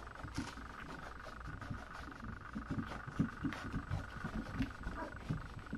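Puppies nursing from their standing mother dog, stretching up to reach the teats: soft, irregular suckling and smacking sounds that start about a second and a half in and come faster towards the end, over a faint steady high hum.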